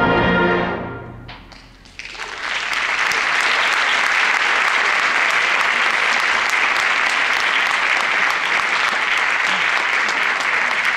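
A concert band's final loud held chord, cut off under a second in and dying away in the hall. A few single claps follow, then the audience breaks into steady applause from about two seconds in.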